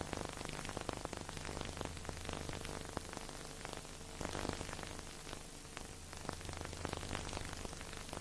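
Steady hiss thick with fine crackling clicks, like surface noise on an old recording, with faint low steady tones underneath that come and go.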